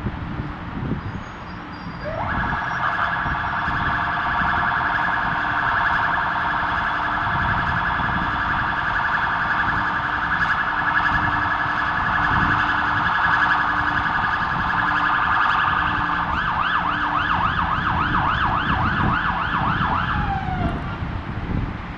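Emergency vehicle siren over traffic noise. It starts with an upward glide, sounds a fast warble, switches near the end to slower rising-and-falling sweeps of about two a second, then falls away.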